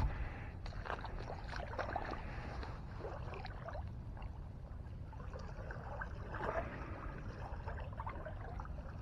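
Faint sloshing and trickling of shallow lake water while a small bass is held down in it for release, over a low steady rumble.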